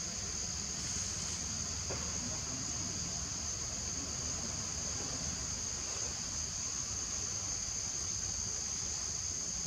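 Steady, high-pitched insect chorus that drones on without a break, over a low rumble.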